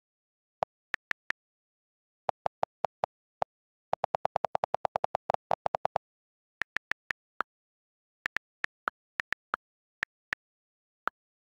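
iPad on-screen keyboard key clicks. Scattered single taps, then from about four seconds in a fast run of lower-pitched clicks, about ten a second, as the delete key is held and the address is erased. After that come higher clicks at typing pace as letters are typed.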